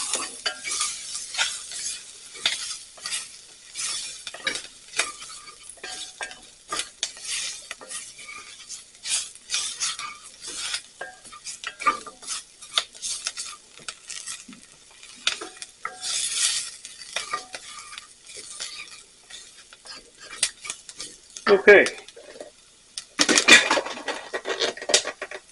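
A utensil stirring and scraping onions, garlic and spices in a hot cast iron pan, in many short irregular strokes, with a light sizzle of the frying. Near the end, a louder clatter of cookware.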